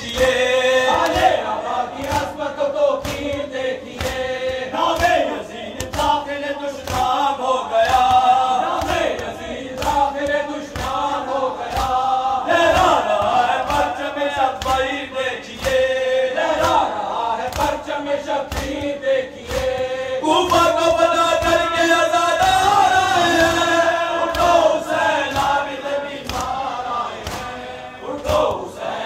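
A group of men chanting a noha (elegy for Imam Hussain) in unison, led by a reciter on a microphone, over a regular beat of sharp strikes like hands beating chests in matam.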